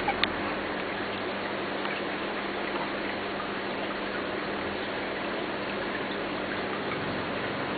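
Steady aquarium running noise: an even hiss of water and equipment with a low hum and scattered faint ticks. Two short sharp clicks come right at the start.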